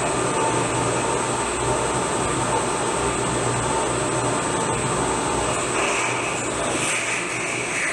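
CNC vertical mill cutting A36 hot-rolled steel with a small end mill at high spindle speed: a steady whine and hiss of the spindle and cut. The sound brightens with an added higher hiss about six seconds in.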